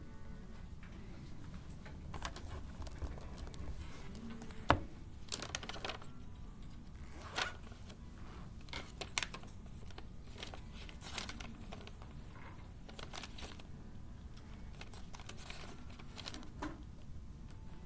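Sheets of printer paper in a thick stack rustling and crinkling as they are leafed through by hand, in short irregular bursts, with one sharp knock about five seconds in.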